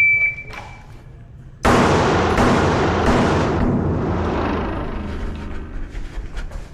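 Shot timer beep, then about a second and a half later a string of pistol shots in quick succession, each shot's echo running into the next.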